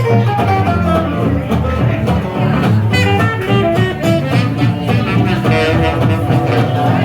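Live jazz band playing an upbeat swing tune: plucked guitar and a walking double bass under a fiddle melody.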